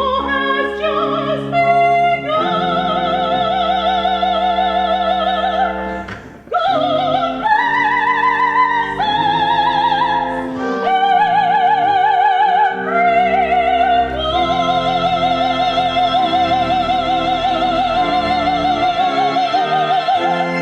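Classical singing in operatic style with strong vibrato over instrumental accompaniment. After a short break between phrases, the voice climbs and then holds one long high note through the last six seconds.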